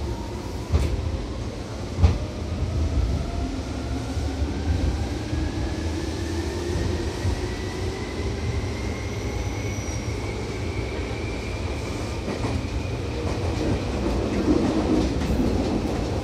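Seibu 2000 series electric train running, its motor and gear whine rising steadily in pitch as the train gathers speed. A rumble runs underneath, with two sharp knocks about one and two seconds in.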